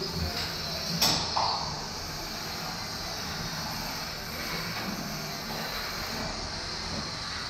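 Antweight combat robots' small electric motors whirring steadily as the robots shove against each other, with a sharp impact about a second in.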